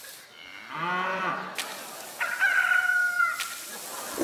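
A rooster crowing: a long, high, held crow from about two seconds in, the loudest sound here, preceded about a second in by a shorter, lower call that rises and falls.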